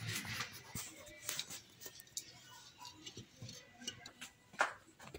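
Light handling noises from repotting plants: scattered small clicks, taps and rustles of pots and soil, with one louder knock about four and a half seconds in.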